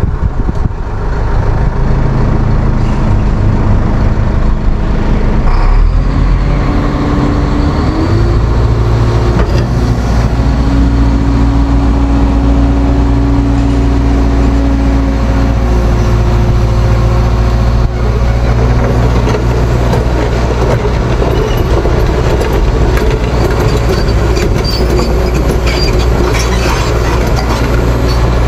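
Heavy diesel engine running steadily close by, its speed stepping up about eight seconds in.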